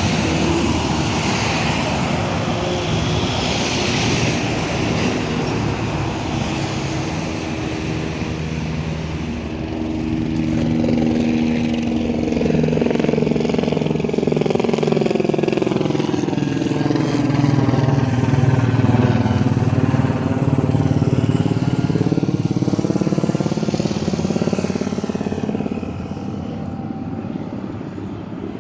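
A low-flying airplane passing overhead: its engine noise swells to a peak about two-thirds of the way through and then fades, with a sweeping, phasing quality. Street traffic, including a motorcycle engine, runs underneath.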